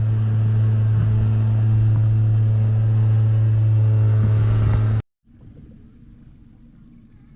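Boat engine running steadily with a strong low hum. It cuts off suddenly about five seconds in, leaving a much quieter low background.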